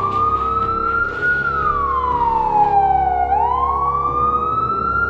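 A wailing siren, its pitch rising slowly and then falling in long continuous sweeps, about two rise-and-fall cycles, over a steady low drone.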